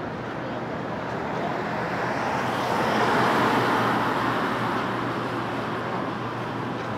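A car passing by on a city street, its road noise swelling to a peak about three seconds in and then fading, over a steady background traffic hum.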